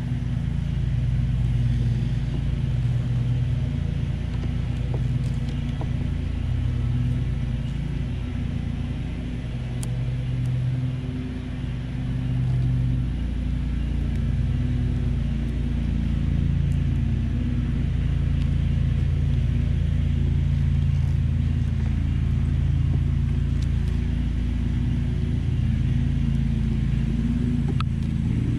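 Honeybees buzzing around an open hive: a steady, low, wavering drone.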